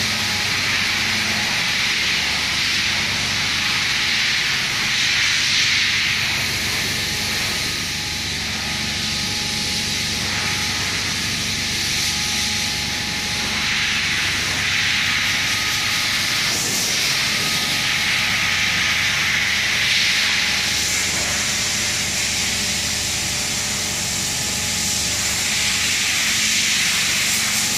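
Steady hiss with a faint machine hum underneath: the background noise of a sheet-metal factory hall, swelling and easing slightly every few seconds.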